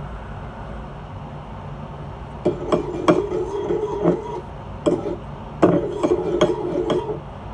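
A mixing utensil knocking and scraping against a bowl while stirring a thick slime mixture. The sharp clinks start about two and a half seconds in and come irregularly, several a second.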